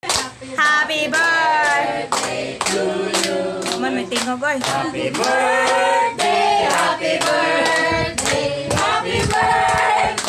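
A group of people singing a birthday song together while clapping along in time, about two claps a second.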